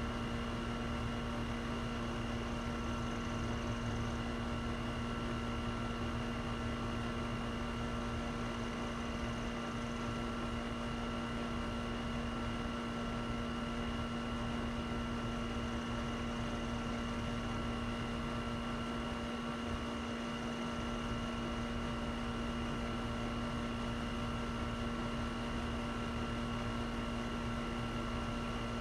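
A steady hum holding a few fixed pitches, unchanging throughout, with no thunder heard.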